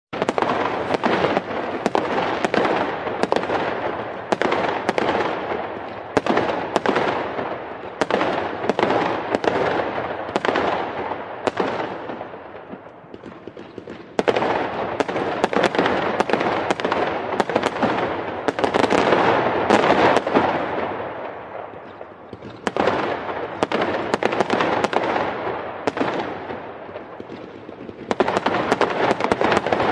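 Aerial firework shells bursting in a rapid, continuous barrage of bangs and crackling, easing off briefly twice before picking up again.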